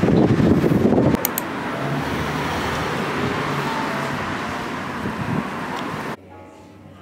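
City street traffic noise, with wind buffeting the microphone for about the first second. Near the end the sound cuts abruptly to a much quieter background with faint music.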